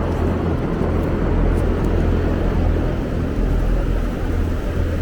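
Large greenhouse ventilation fans running with a steady, low drone.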